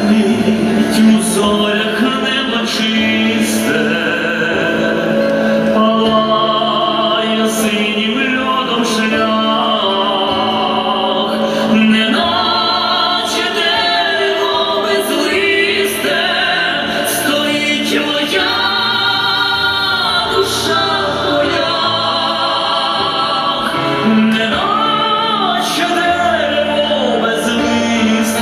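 A song: singing voice over an instrumental backing, with a steady held low note underneath.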